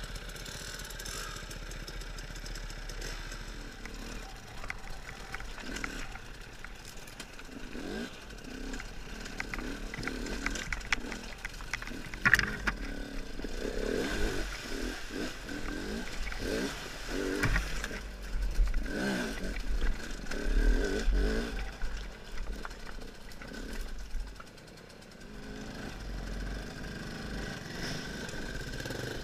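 KTM two-stroke enduro motorcycle engine running at low speed over rocks, its note rising and falling in short bursts of throttle through the middle stretch, with clatter from the bike. A single sharp knock about twelve seconds in.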